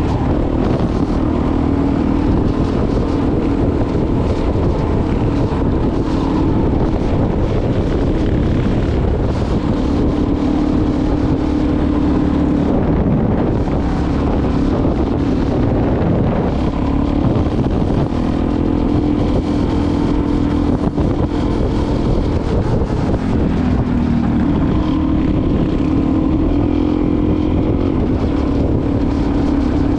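Off-road motorcycle engine running while riding along a dirt track, heard from the rider's helmet with wind on the microphone. The engine note drops and climbs again a few times as the throttle changes.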